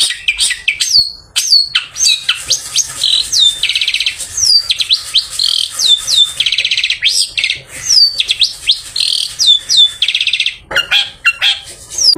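Long-tailed shrike singing a loud, busy song: a rapid string of sharp notes that each fall in pitch, broken by about three harsh, buzzy rattles.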